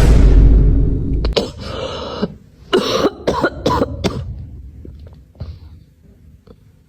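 A run of coughs: several short harsh bursts in the first four seconds, opening with a loud low rumble, then trailing off into quieter sounds.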